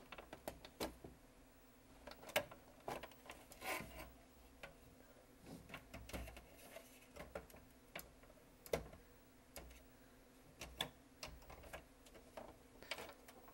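Irregular light clicks and small knocks of a VCR/DVD combo's internal parts being handled and pried at during disassembly, with a couple of sharper knocks.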